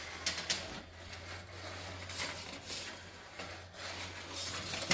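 Steel tape measure blade being fed down through a conduit hole in an electrical panel: light scraping and irregular rattling clicks, over a faint steady low hum.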